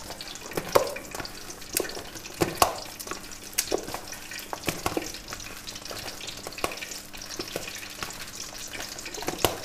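Hands squishing and mixing chopped chicken mince, boiled macaroni and capsicum in a stainless steel bowl: irregular soft squelches and rustles with scattered sharper clicks.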